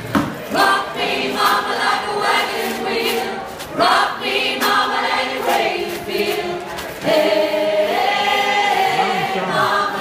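Mixed choir of men and women singing together in phrases, holding a long note over the last few seconds.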